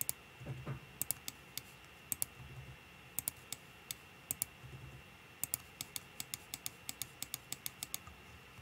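Computer mouse and keyboard clicking, faint, over a faint steady high whine. There are scattered sharp clicks, then a quick, even run of about a dozen clicks in the second half.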